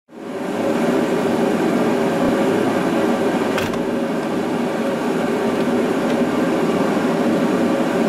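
Steady, loud mechanical whir, an even rushing hum like a blower fan, fading in at the start, with a faint click about three and a half seconds in.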